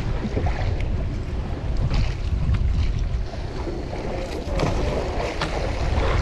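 Wind buffeting the microphone over water washing and slapping against a small boat, with a few short sharp knocks scattered through.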